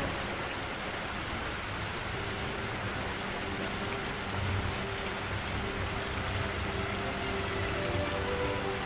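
Steady rain ambience, an even hiss of falling rain, with faint held music notes underneath that become a little clearer later on.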